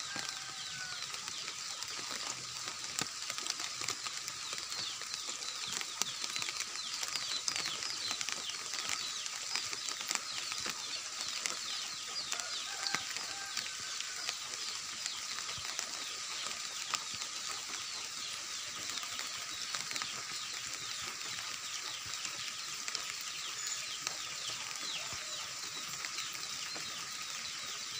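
Steady rain falling, a dense patter of countless drops. A steady faint high tone runs underneath, and a couple of faint short calls come through near the start and about halfway.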